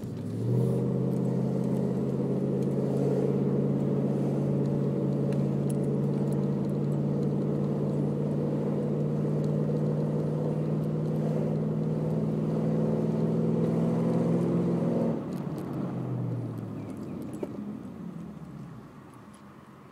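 Toyota Celsior's 1UZ-FE 4.0-litre V8 exhaust, with the engine cold, holding a steady drone under throttle for about fifteen seconds. The throttle then lifts and the note drops and fades away.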